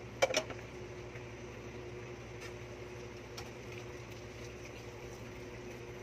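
Dishes being handled and washed at a sink: a quick pair of sharp clinks a fraction of a second in, then a few faint clicks, over a steady background hum.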